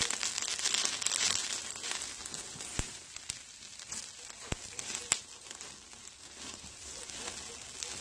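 Wood fire crackling under ribs sizzling on a wire grill, with a few sharp pops. The crackle is loudest at first and dies down over the following seconds.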